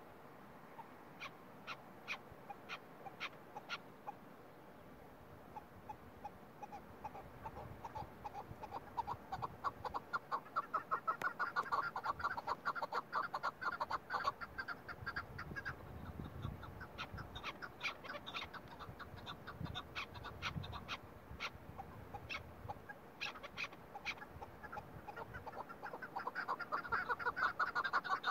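Chukar partridge calling: a fast run of repeated clucking notes that starts about eight seconds in, swells, eases off, and builds again near the end. A few sharp, spaced clicks come in the first few seconds.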